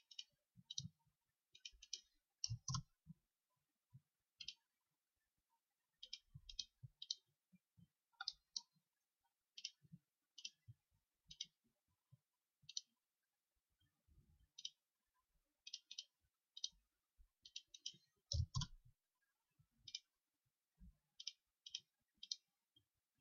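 Computer mouse clicking faintly and irregularly, single clicks and quick double clicks, as CAD sketch geometry is placed. A couple of dull knocks, the strongest about three quarters of the way through.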